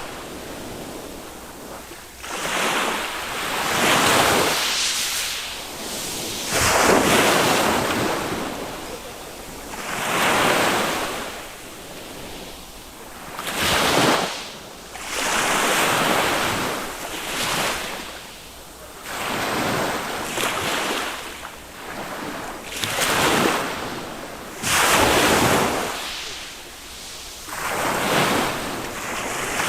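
Small waves on a calm Mediterranean sea breaking and washing up the beach one after another, each swelling and fading over two to three seconds.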